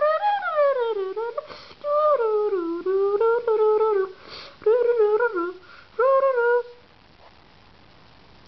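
A voice humming a wandering tune in short gliding phrases, stopping about seven seconds in, with a couple of brief rasps between the phrases.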